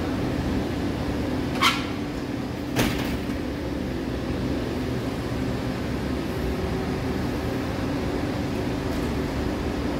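Steady mechanical hum like air-conditioning, with two short clacks from a glass shop door swinging and closing, the first with a brief ring, about one and a half and about three seconds in.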